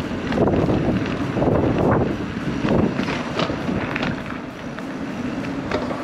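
Wind buffeting the microphone of a moving bicycle, rushing in uneven gusts that ease off somewhat about halfway.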